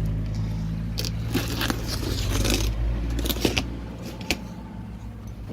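Large cardboard box being opened by hand: packing tape cut and torn and cardboard scraping and crinkling in short, irregular bursts. Under it runs a low steady hum that fades out about four seconds in.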